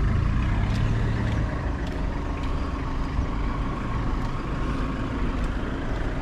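Steady low rumble of a running motor vehicle, with a faint hum in it and a few light ticks.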